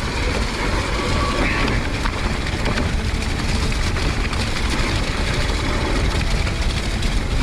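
Steady rushing wind and trail noise on a mountain bike's action-camera microphone while riding downhill: low rumble from the tyres over wet, rocky ground, with a few light knocks and rattles from the bike.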